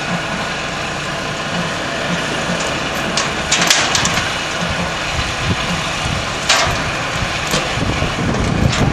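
An engine running steadily, with a few sharp knocks a little over three seconds in and again near six and a half seconds.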